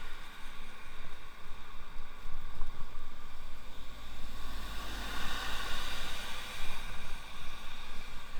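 Wind rushing over the microphone with road noise while riding an electric bicycle: a steady low rumble and hiss that swells to a louder rush about halfway through.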